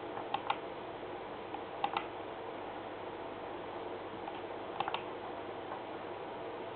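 Computer mouse clicking in quick double clicks, three pairs a few seconds apart, over a steady hum of room and computer noise.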